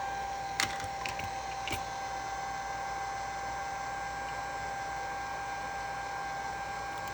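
Hot-air rework gun blowing steadily with a steady whine, heating the phone to soften its adhesive. A few light clicks come about half a second and near two seconds in.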